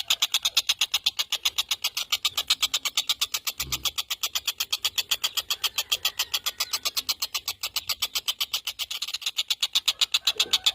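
Tengkek buto kingfisher calling in a rapid, unbroken rattling chatter of about ten sharp notes a second, high-pitched and steady. It is played as a masteran song for training competition birds.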